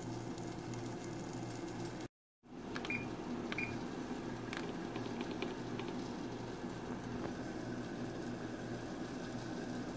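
Battered cod frying in butter and oil under a glass lid, with a steady sizzle. About three seconds in, a Frigidaire range's timer buttons are pressed: two short beeps, then a few light button clicks.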